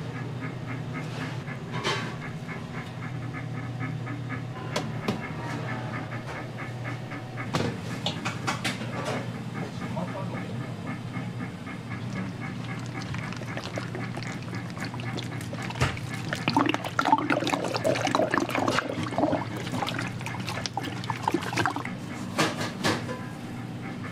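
Kitchen handling of freshly cooked rice: a cooking cloth pulled from a rice cooker, then steamed rice turned into a large stainless steel bowl. Scattered knocks, scrapes and rustles sound over a steady low hum, busiest about two-thirds of the way in.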